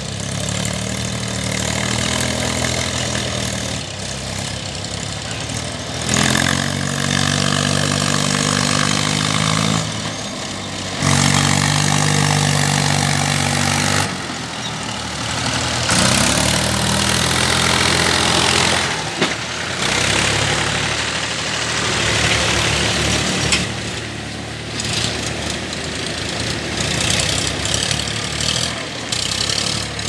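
Mahindra farm tractor's diesel engine labouring under load as it tows a loaded trolley through deep mud, the revs rising in several surges of a few seconds and then easing back.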